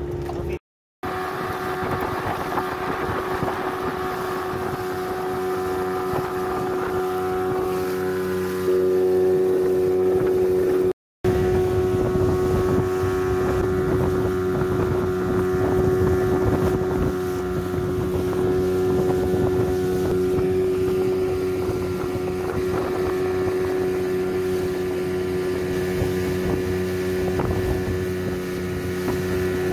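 A steady engine drone that holds one pitch throughout, with wind noise on the microphone. The sound cuts out completely twice for a moment, about a second in and again near the 11-second mark.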